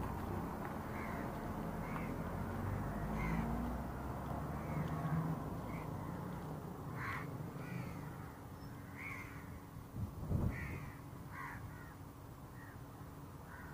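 Crows cawing again and again, short caws about a second apart, over a steady low outdoor rumble, with a brief low bump about ten seconds in.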